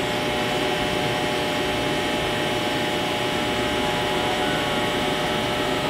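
Steady machine hum with a few faint steady whining tones, unchanging throughout.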